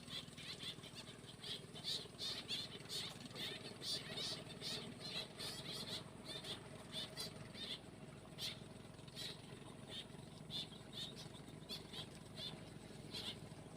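Birds chirping in many quick, short high notes over a faint steady low hum.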